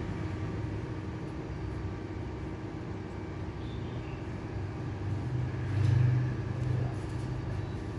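Low, steady rumble of background road traffic, growing louder for a moment about six seconds in as a vehicle passes.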